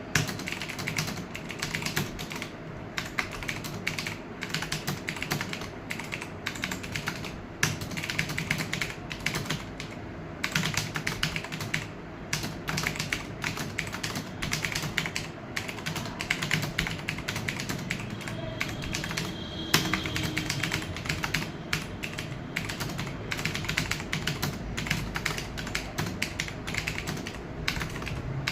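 Rapid, continuous typing on a computer keyboard, a steady stream of key clicks broken by a few brief pauses.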